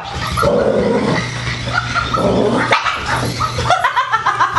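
Barking and growling, with a person starting to chuckle near the end.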